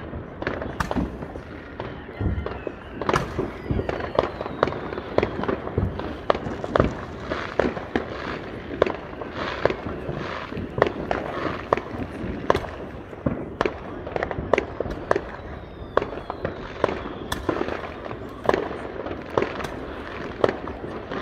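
Many fireworks going off around the neighbourhood: sharp bangs in quick, irregular succession, with a falling whistle twice.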